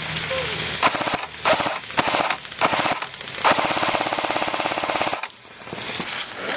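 Airsoft M60 electric machine gun firing on full auto: several short bursts of rapid clicks, then a longer burst of nearly two seconds about halfway through.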